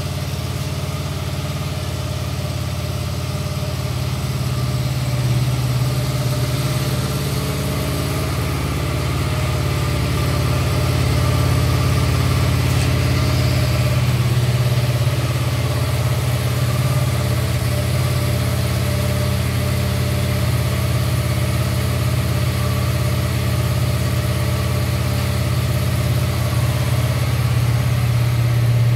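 A motorcycle engine idling steadily, a constant low hum with no revving.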